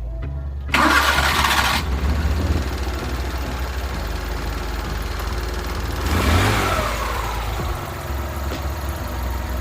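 Suzuki F6A three-cylinder engine cranked by the starter and catching under a second in, then running at idle, with a brief rev and drop around six seconds in.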